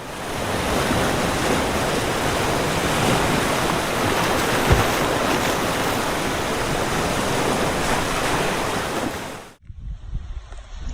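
Steady, even rushing noise that cuts off suddenly near the end.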